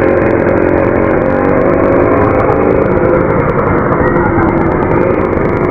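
Light truck's engine running as it passes close by, a loud steady drone with a pitched hum.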